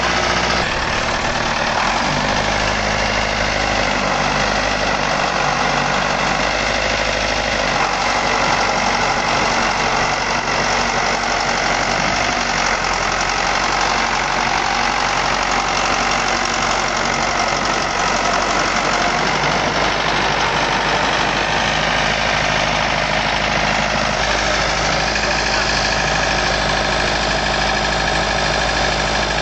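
Tractor engine running steadily, its note shifting slightly a few times.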